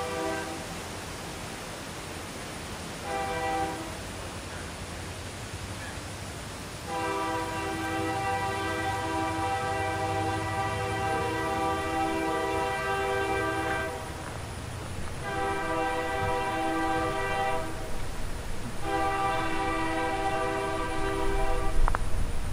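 Diesel locomotive air horn sounded for a grade crossing as the train approaches: the tail of one blast at the start, a short blast about three seconds in, then three long blasts, each a steady multi-note chord. A low rumble from the oncoming locomotive grows louder near the end.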